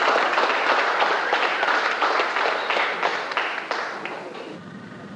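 Audience applause, many hands clapping, fading out about four seconds in.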